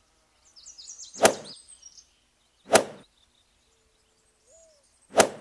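Three crisp golf-club strikes on a ball, the second about a second and a half after the first and the third about two and a half seconds later. Birds chirp in quick high notes through the first strike.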